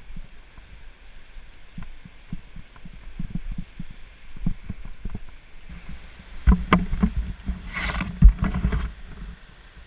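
Mountain bike rattling and knocking over roots and rocks on a fast singletrack descent, with irregular thumps from the frame and camera mount. About six and a half seconds in comes a flurry of harder knocks and a brief hiss over rougher ground.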